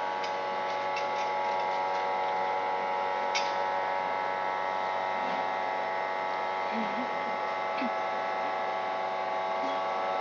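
Steady electrical hum with many overtones, unchanging throughout, with a few faint clicks.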